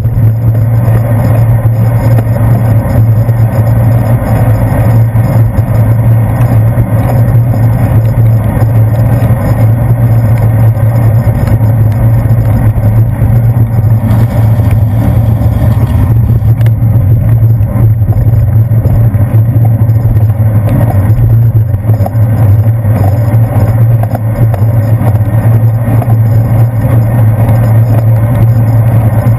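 Loud, steady low rumble of a bicycle riding on wet pavement, heard through a handlebar-mounted GoPro Hero 2: wind and road vibration on the camera with tyre noise on the wet surface.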